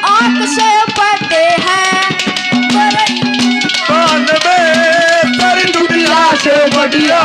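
Haryanvi ragni folk song performed live and amplified: a boy's solo voice with wavering, ornamented held notes over steady harmonium drones and quick hand-drum strokes.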